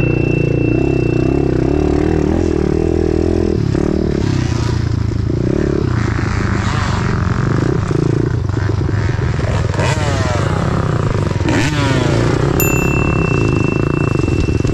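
Kawasaki KLX110 pit bike's small single-cylinder four-stroke engine running hard on a dirt trail, revs rising and falling with the throttle, over steady trail clatter. A bright ding rings out near the end.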